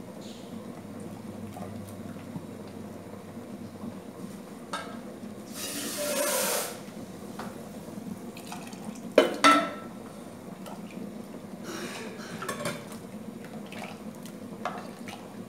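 Cooking at a gas stove: a pot of beans bubbling steadily, a loud hiss lasting about a second around six seconds in, then two sharp knocks of a utensil against a pot about nine seconds in, and lighter clinks of pots and spoons later on.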